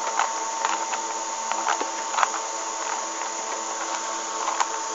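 Rubik's Cube being turned by hand: irregular plastic clicks as its layers are rotated, over a steady background hiss.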